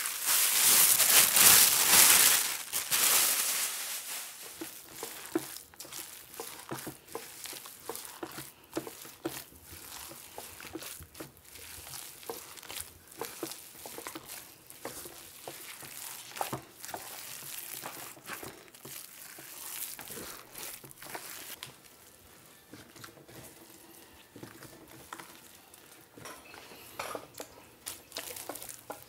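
A gloved hand kneading, squeezing and slapping raw minced-pork meatball paste in a stainless steel bowl, with irregular wet squelches and smacks. In the first three seconds it is louder, with a rushing rustle as white powder is tipped from a plastic bag into the bowl.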